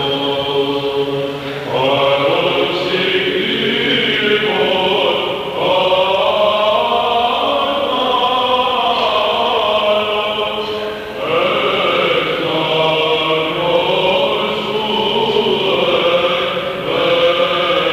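Unaccompanied vocal chant: a voice sings long, winding phrases over a steady low held note, with brief breaks between phrases every few seconds.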